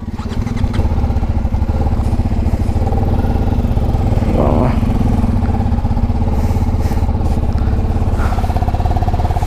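Single-cylinder engine of a TVS Apache RR310 motorcycle idling steadily at standstill, with a fast, even pulsing beat.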